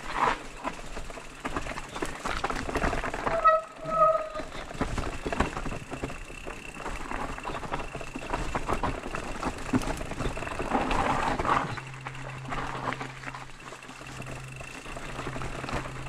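Electric mountain bike ridden with its motor switched off over a wet trail, its tyres and frame giving many small clicks and knocks. About three and a half seconds in come two short squeals from the brakes, which are squeaking from the damp.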